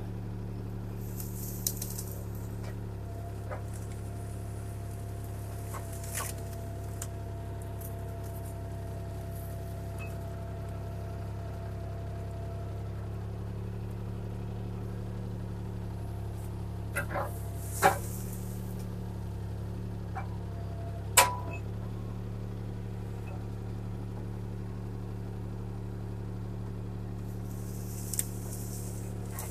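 CAT 303C CR mini excavator's diesel engine running at a steady hum while the arm works brush, with a few sharp knocks and clanks, the two loudest about two-thirds of the way through.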